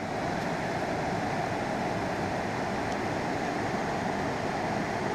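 Steady rush of river water tumbling over a rocky rapid.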